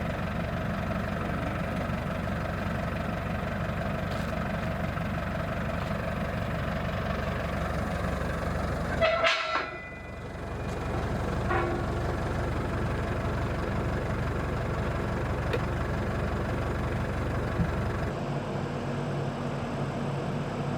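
An engine running steadily with a low, even hum. About nine seconds in there is a brief louder, higher-pitched sound and a short drop-out, and the sound shifts slightly near the end.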